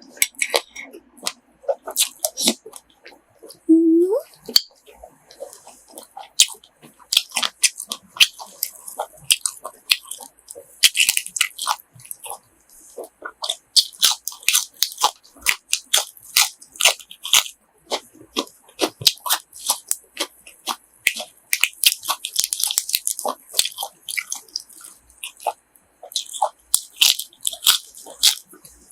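Close-up chewing and crunching of crispy grilled pork offal, a dense run of small crackling bites, with a short hum about four seconds in.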